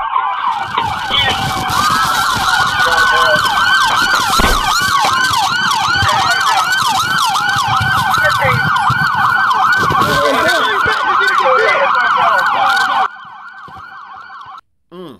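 Several police sirens sounding at once from sheriff's patrol cars, slow wails overlapping fast yelps. About thirteen seconds in they drop sharply quieter, then cut off.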